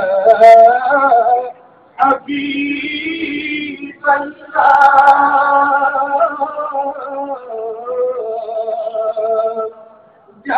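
Male voices singing a devotional salam to the Prophet Muhammad (Milad qiyam) through a microphone, in long held, wavering phrases with short breaths between them.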